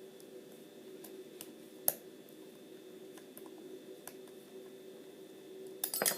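Faint metallic clicks of a hook pick and tension wrench working the pins of a Master Lock Excell padlock during single-pin picking, over a low steady hum. There is a sharper click about two seconds in and a quick run of louder clicks near the end.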